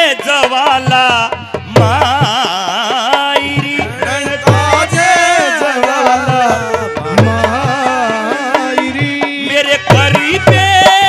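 Clarinet playing an ornamented Haryanvi ragni melody over a regular hand-drum beat.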